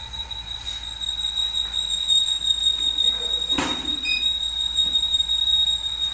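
Cap heat press machine noise: a steady high whine over a hiss, with one sharp clunk about three and a half seconds in.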